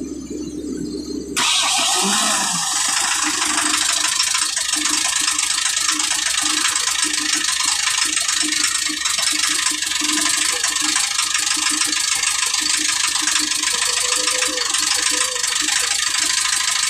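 Excavator diesel engine on a freshly fitted fuel injection pump comes in suddenly about a second and a half in and then runs steadily at idle; the throttle linkage is not yet connected and the belt not yet fitted.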